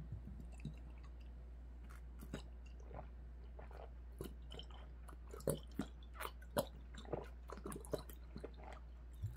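A person chugging from an upturned glass soju bottle in one go: a run of faint, irregular swallowing gulps and wet mouth clicks, more frequent and distinct from about five seconds in.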